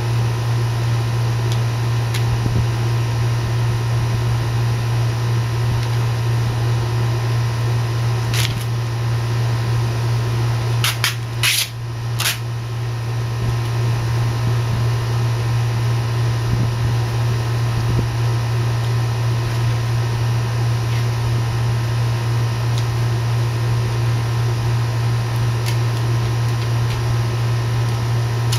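Steady low machine hum with a faint steady tone above it, like a fan running, broken by a few sharp clicks about eight seconds in and again around eleven to twelve seconds in.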